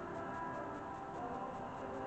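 Faint background music over low, steady workshop room tone.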